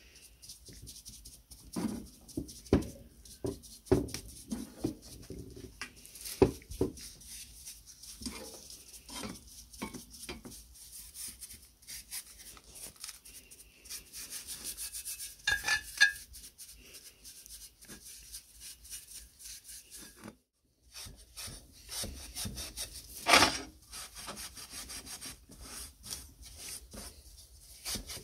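A bristle brush dabbing and stroking liquid onto a sandblasted metal seed planter wheel, with scattered clicks and knocks of the brush and wheel against metal. After a short break near the two-thirds mark, the blackened wheel rim is rubbed by hand in a steady rasping scrub, with one sharp knock in it.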